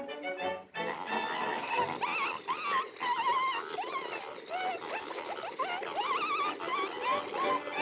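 Cartoon pig sound effects: a sow and piglets squealing and grunting as they gobble from a trough. Many short squeals bend quickly up and down over a constant noisy, wet slurping.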